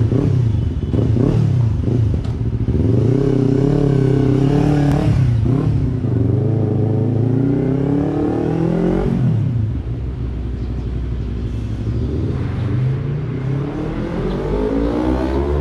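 Yamaha YZF-R3's parallel-twin engine through a Yoshimura R77 exhaust with its muffler insert fitted: a few quick rev blips, then the revs climbing and dropping off several times as the bike pulls away and is ridden.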